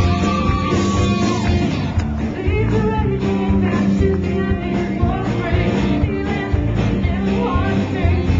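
Live rock band playing with two electric guitars and drums, and the lead singer singing at the microphone. Recorded from the crowd on a Flip camcorder's built-in microphone.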